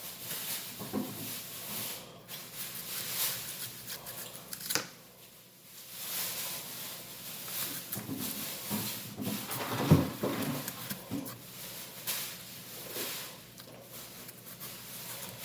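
Kitchen knife slicing an apple into thin slices on a cutting board: irregular crisp cuts and scrapes with knocks of the blade on the board, the loudest knock about ten seconds in.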